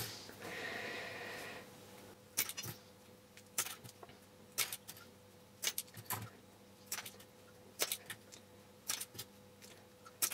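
Scissors snipping through wooden matchsticks to cut off the match heads: a sharp snip about once a second, often in quick pairs, repeated a dozen or so times.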